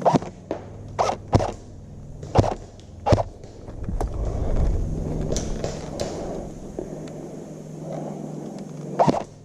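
Airsoft guns firing: sharp snaps at irregular intervals, several in the first three seconds and another near the end, over a low rumble.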